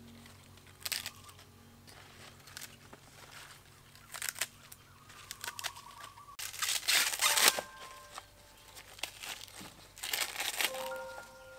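Crisp snapping and tearing of fresh leafy greens and their stems, in short crackling bursts, with the loudest, longest stretch of cutting and tearing a little past halfway. Near the end, the papery green husk is torn from an ear of fresh corn.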